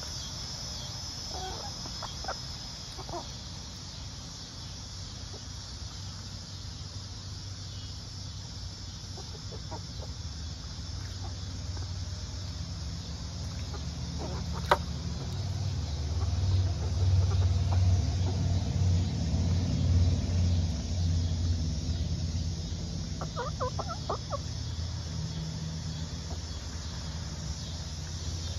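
Chickens clucking softly now and then as they peck, with a quick run of clucks near the end and one sharp tick about halfway through. A low rumble swells up through the middle and is the loudest sound.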